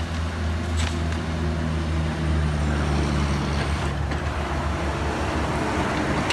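Diesel engine of a Komatsu PC138US hydraulic excavator running steadily under load as the machine swings its boom and digs, a low drone that strengthens a little midway, with two faint knocks.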